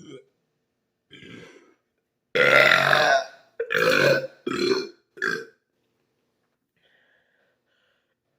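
Man burping, the burps brought up by cold carbonated soda: a soft burp about a second in, then a long loud burp followed by three shorter ones in quick succession.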